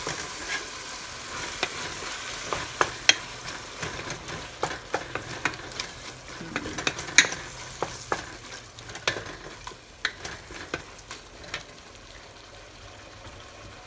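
Onions and tomatoes sizzling in hot oil in a pot while a spoon stirs them, clicking and scraping against the pan many times. The sizzle dies down over the last few seconds.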